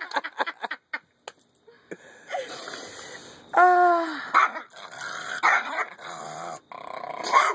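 A Pomeranian and an Australian Shepherd puppy play-fighting: rustling and scuffling on a blanket, then growling, with one drawn-out yip about three and a half seconds in.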